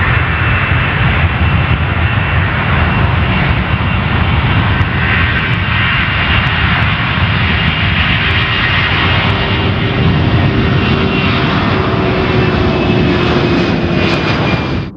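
Boeing C-17 Globemaster III's four Pratt & Whitney F117 turbofans at takeoff thrust during the takeoff roll. A loud, steady jet noise with a high whine and a lower tone that slowly drops in pitch as the aircraft passes.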